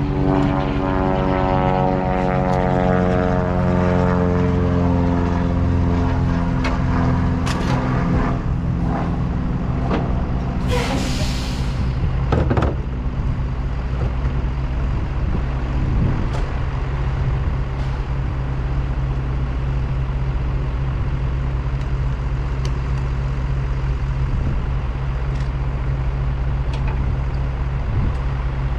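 Truck engine running on the road, its pitch falling over the first several seconds before it settles into a steady low drone. There is a short loud hiss about eleven seconds in, and a few scattered knocks.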